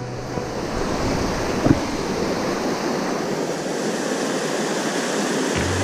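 Fast whitewater of a mountain creek in high runoff, rushing steadily over rocks: the water is "ripping". A single short knock sounds about a second and a half in.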